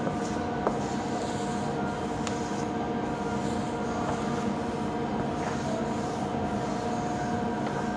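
A steady mechanical hum with several held tones over a low rushing noise, with one sharp click about a second in.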